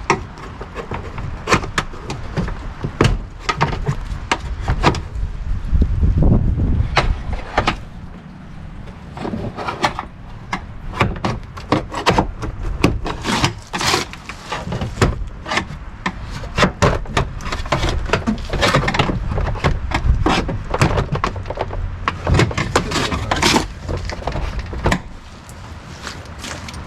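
Repeated clicks, knocks and rattles from a Chevy C/K pickup's door as hands work at the handle and latch inside it, with a low rumbling stretch of handling noise about six seconds in.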